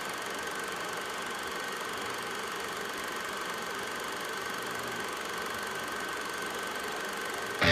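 A steady mechanical hum with a faint, thin, high whine held over it.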